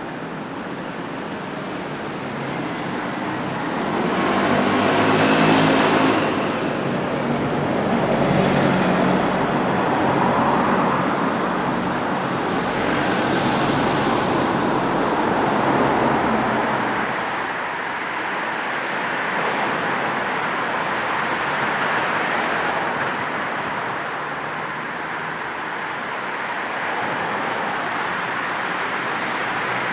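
City street traffic: a steady wash of tyre and engine noise, with several cars passing close by in the first half, the loudest about five seconds in.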